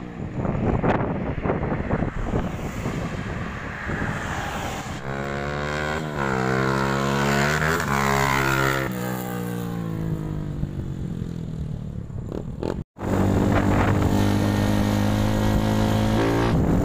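Viar Cross X 200 ES dirt bike's single-cylinder engine, fitted with a GP7 aftermarket exhaust, accelerating up and passing by, its pitch rising then falling about halfway through. After a brief break the engine runs steadily as heard from on the bike while riding, and revs up just before the end.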